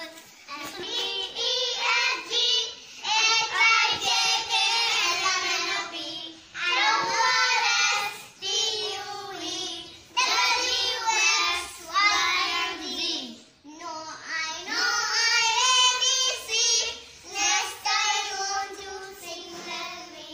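A young girl singing unaccompanied in a high child's voice, in phrases of a few seconds with short breaks between them.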